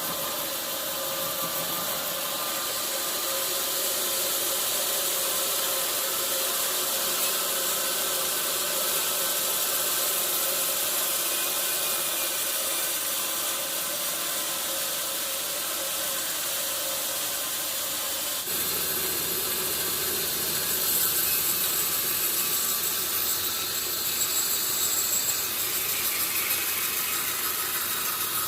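Sawmill saw running steadily as it cuts through a log, a constant hum over hissing machine noise. The sound shifts abruptly about two-thirds of the way through.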